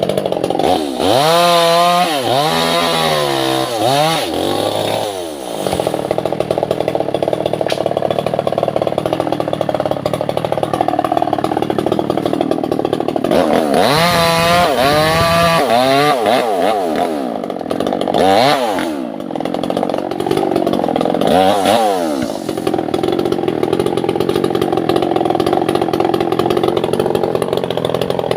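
Two-stroke chainsaw running hard through Albasia (sengon) wood. Its engine pitch swings down and back up several times in the first few seconds, and again a few times around the middle, with steady running in between.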